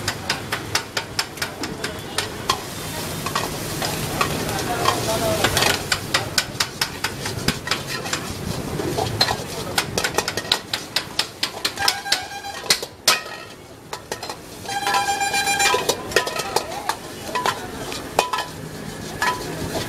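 Steel ladle scraping and clanking rapidly against a wok as egg and rice are stir-fried over a high gas flame, with steady sizzling underneath.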